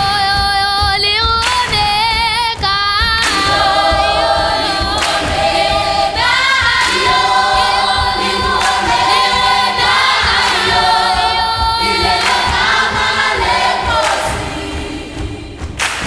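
Children's choir singing together in several voice parts, with a thud about every second and three quarters marking the beat.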